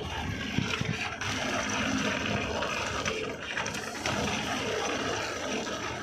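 918-C wire stripping machine running with insulated cable being fed through its rollers and stripping blade: a steady mechanical hum and scraping noise, with a few short knocks about a second in.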